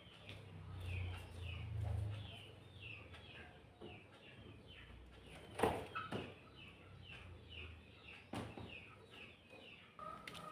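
A bird chirping over and over, short falling chirps about two or three a second, with a low hum early on and a couple of sharp knocks partway through.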